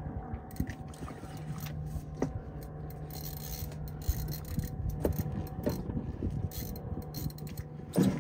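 Heavy spinning rod and reel being worked against a big fish: scraping, rubbing and clicking from the reel and rod over a steady low hum, with a sharp knock about eight seconds in.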